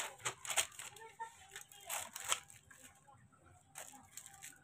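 Paper sheets and a small plastic parts bag being handled, rustling and crinkling in irregular bursts.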